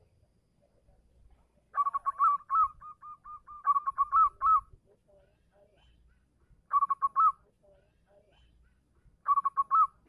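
Local zebra dove (perkutut) singing its song of quick staccato coos, in three bouts: a long one about two seconds in, then two short ones near the middle and near the end. It is the song used to call a female.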